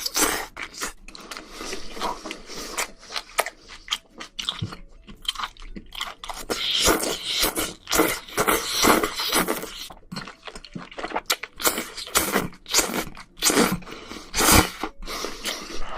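Close-miked eating of spicy seafood: irregular chewing with many short, sharp clicks.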